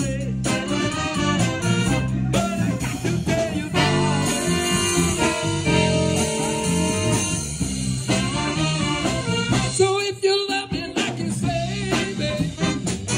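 Live band playing upbeat, horn-driven music: a saxophone section of tenor, alto and baritone saxes over congas and drums, with a singer. The low end drops out briefly about ten seconds in, as in a short break.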